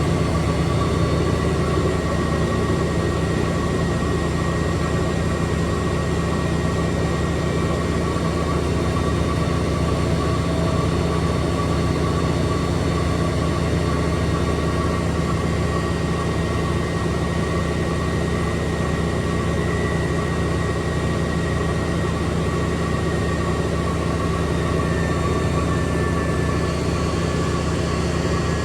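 Extra-large coin-laundry washing machine in its spin cycle: a steady, loud motor hum with a constant high whine from the drum spinning at speed.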